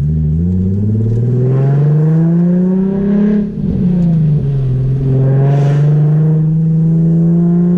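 Nissan VQ V6 with a Tomei Expreme Ti exhaust and ISR Y-pipe, loud, pulling under throttle. Its pitch climbs for about three seconds, drops sharply at a gear change, then rises slowly and holds steady.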